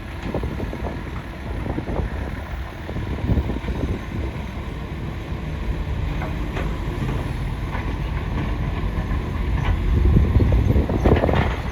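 Excavator working: a steady low machine rumble with scattered knocks, swelling near the end, and wind buffeting the microphone.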